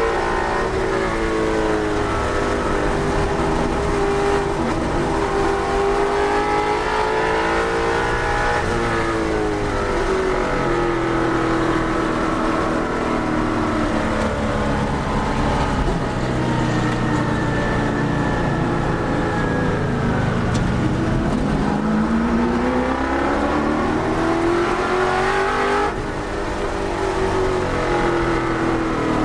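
Touring race car's engine heard from inside the car at racing speed, its pitch rising under acceleration and falling on braking through the corners. The deepest drop comes about twenty seconds in, followed by a long climb, and there is a brief dip in the sound near the end at a gear change.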